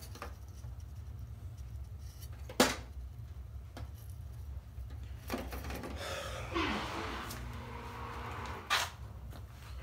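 A steady low hum with a few sharp clicks and a stretch of rustling handling noise in the second half, the loudest click a little over two seconds in.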